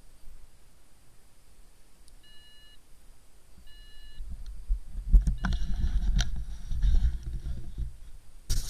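Two short electronic beeps from a device, about a second and a half apart, then low rumbling wind noise on the microphone with a few knocks, and a loud burst of noise near the end.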